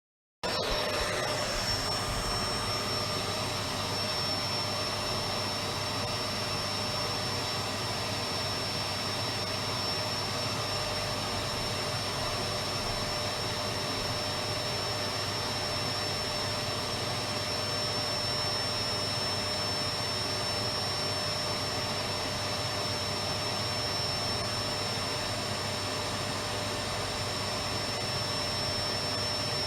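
Electric vacuum cleaner running steadily, its motor noise carrying a constant high whine. It cuts in abruptly about half a second in, after a brief moment of silence.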